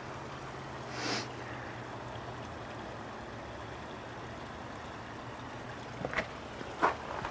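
Steady outdoor background hiss during heavy snowfall, with a faint low hum under it. A brief louder swell of hiss comes about a second in, and a couple of soft crunches near the end.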